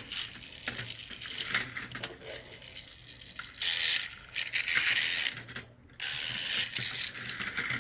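Small battery-powered toy vehicle's motor and plastic gears running with a ratcheting whir, mixed with plastic clicks and clatter from handling the toy and its puzzle track.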